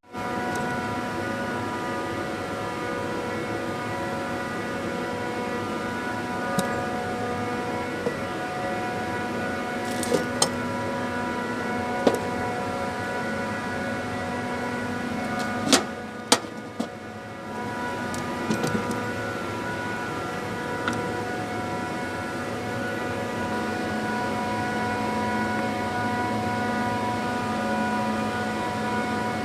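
Trane RTAC air-cooled screw chiller's screw compressor running, a steady whine made of several tones. A few sharp metallic clicks or knocks cut through it around the middle.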